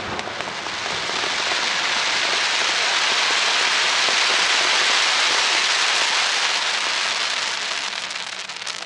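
Fireworks crackling: a dense, continuous mass of tiny pops, like crackling stars after a shell burst, that swells in the first second, holds, and fades near the end.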